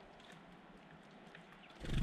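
Faint background with a few small ticks, then near the end a sudden low thump close to the microphone that trails off in a short rapid flutter.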